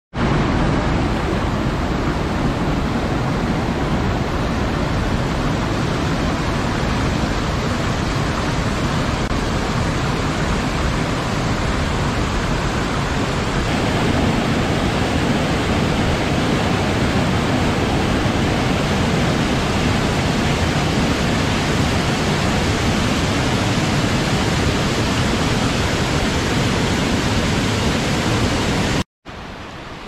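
Waterfall: a steady, loud rush of falling water. It starts abruptly and cuts off suddenly about a second before the end.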